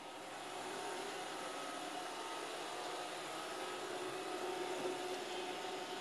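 iRobot Roomba 530 robot vacuum running: a steady, even rushing noise from its vacuum motor and brushes, with a faint steady hum of a few tones over it.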